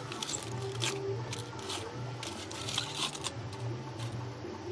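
Moulding sand being scraped and dug away with a hand tool to uncover a freshly poured aluminum casting: irregular gritty scrapes, over a steady low hum.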